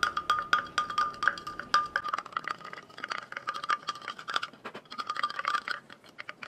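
A wooden stirring stick clinking and scraping against the inside of a drinking glass, rapid and uneven, as collagen drink powder is stirred into cold water.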